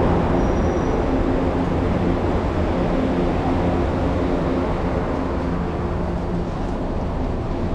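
Steady rumble and hum of a São Paulo metro train, heard on the platform and then inside the carriage.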